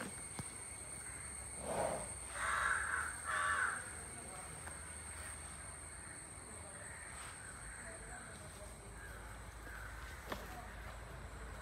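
A crow cawing, a few harsh caws in a cluster about two to four seconds in.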